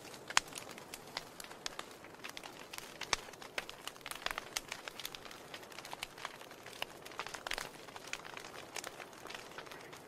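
Wood fire crackling in an open fireplace: irregular sharp pops and snaps over a faint hiss, with the loudest pop about half a second in.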